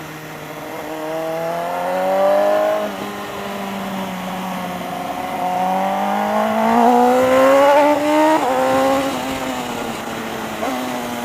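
BMW S1000RR's inline-four engine pulling hard. The revs climb twice, about three seconds in and again around eight seconds in, and each climb breaks off with a sudden drop in pitch as the gears are worked.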